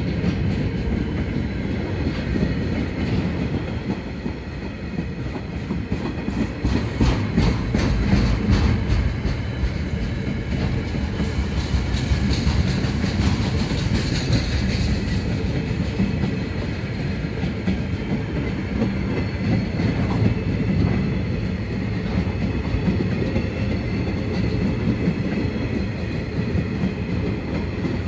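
A freight train's wagons rolling steadily past on the track, a continuous rumble with wheels clacking over rail joints. A run of sharp clicks comes a quarter of the way through.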